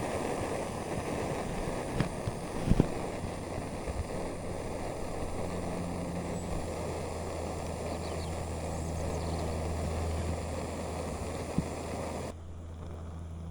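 Portable gas burner running with a steady hiss under a pan of water at the boil, with a few light clicks early on; the hiss stops suddenly near the end.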